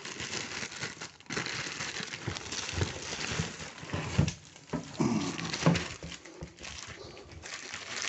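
Plastic wrapping film crinkling and rustling as a wrapped plastic cooler is handled and pulled out of its cardboard box, with a few dull knocks.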